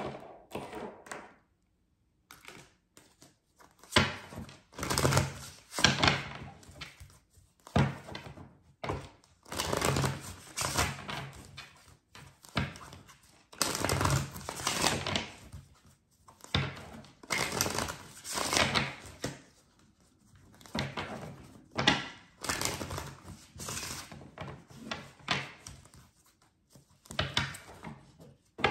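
Tarot deck being shuffled by hand: repeated short bursts of cards sliding and riffling against each other, each about a second long with brief pauses between.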